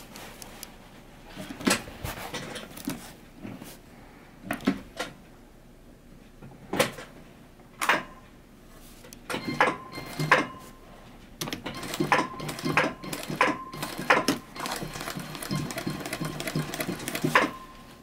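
Brother single-needle, needle-feed industrial sewing machine sewing a back pocket onto heavy denim: a few separate clicks while the fabric is set under the presser foot, then from about halfway the machine runs in short stitching spells with a faint whine.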